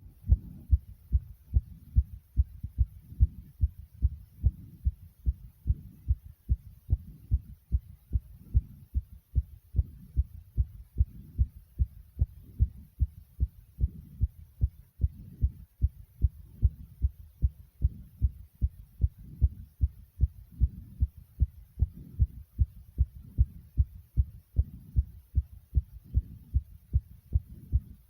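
A human heartbeat beating fast after about 60 jumping jacks: a steady, quick rhythm of low thumps.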